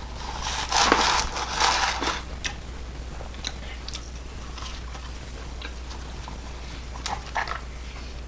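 Someone biting into and chewing fast food, with a loud crunchy burst about a second in and a few smaller crunches and clicks later. A steady low electrical hum sits underneath.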